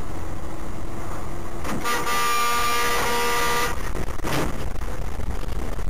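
A car horn held for about two seconds, starting about two seconds in, over steady road and engine rumble heard from inside a moving car. A brief, shorter sound follows about half a second after the horn stops.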